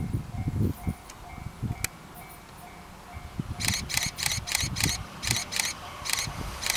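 Japanese railway level crossing warning bell ringing its steady, even-paced alarm as a train approaches. About halfway in, a quicker run of sharp, bright ringing strokes joins it, over low buffeting rumble.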